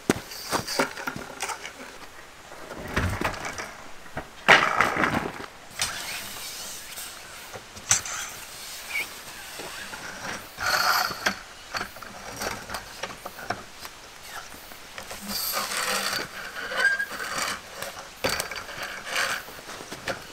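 A vehicle's roll-out side awning being set up by hand: its fabric rustling and its metal legs clacking and sliding as they are swung out and extended, in irregular bursts of rustling with scattered clicks and knocks.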